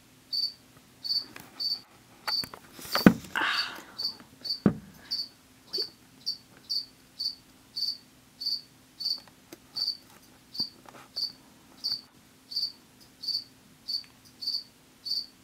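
A cricket chirping steadily, about two short chirps a second. A brief rustling knock comes about three seconds in, and a sharp click just before five seconds.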